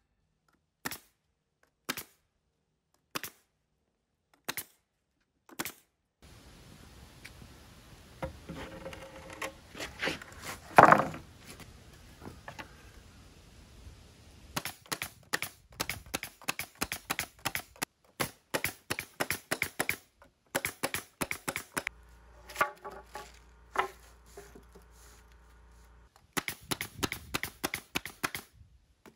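Pneumatic nail gun firing nails through plywood gusset plates into a wooden truss joint: single sharp shots about a second apart at first, later fast runs of shots. A louder knock stands out about eleven seconds in.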